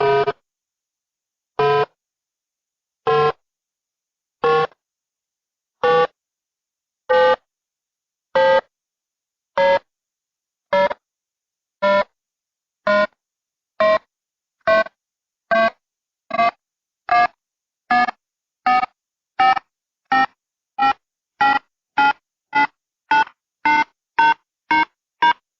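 Countdown beeps: short pitched tones with silence between, coming faster and faster, from about one every second and a half to more than two a second, and rising slowly in pitch.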